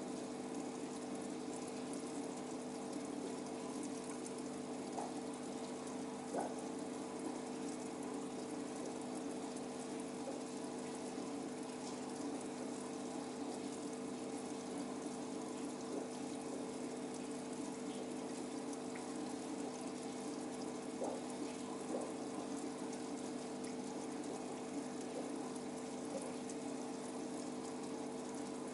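Aquarium pump humming steadily, with water bubbling and churning and a few faint ticks.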